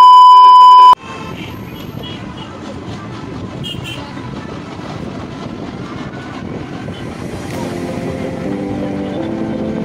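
A loud, steady test-pattern beep lasting about a second, cutting off sharply, followed by the steady road and wind noise of an electric rickshaw (toto) riding along a street.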